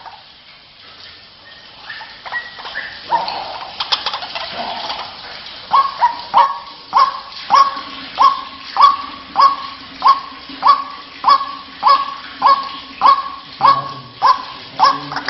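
White-breasted waterhen calls used as a lure: scattered harsh notes at first, then from about six seconds a steady, monotonous run of repeated notes, close to two a second.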